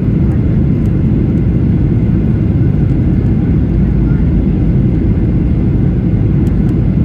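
WestJet jet airliner during its landing, a loud, steady low rumble with no rise or fall.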